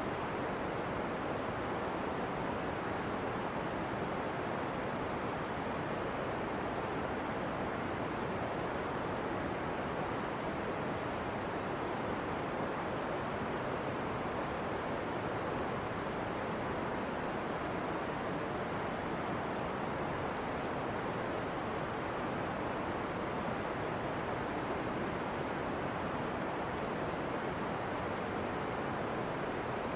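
Steady rushing hiss of steam and gas jetting from the Pisciarelli fumarole vent, even and unchanging, with no breaks.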